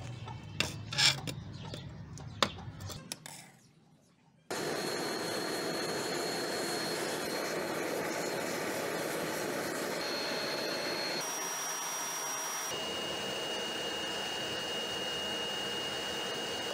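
A few knocks and clicks, then from about four and a half seconds in a steady rushing noise as a homemade forge, built from an old gas cylinder, is fired with its pipe feeding it.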